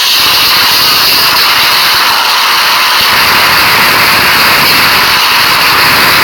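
Loud, steady hiss-like noise spread evenly across high and low frequencies, with no pitch and no breaks.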